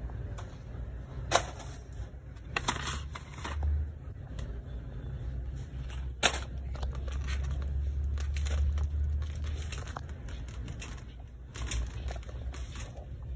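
Shopping cart being pushed over a tile floor: a steady low wheel rumble with a few sharp clicks and rattles, strongest in the middle.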